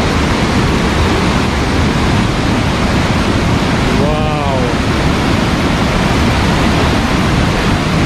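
A large waterfall heard from right at its lip: river water pouring over the rock edge and dropping into the gorge, a loud, steady rush of water.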